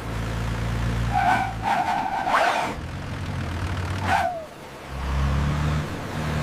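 Bus engine sound effect running with a steady low drone, and two short horn honks about a second in. A brief falling tone follows about four seconds in.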